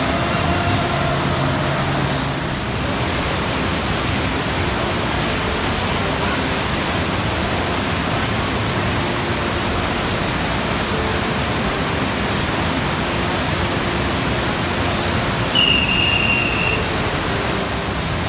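Steady rushing of water pumped as a thin sheet up an artificial standing-wave surf ride. About three-quarters of the way through, a brief high tone sounds for about a second.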